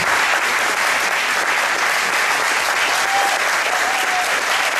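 Audience applauding steadily, with a faint call or two from the crowd about three seconds in.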